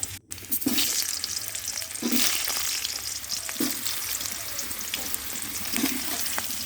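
Potatoes sizzling and crackling as they fry in hot oil, with a few short scrapes as they are stirred. The sound drops out briefly just after the start.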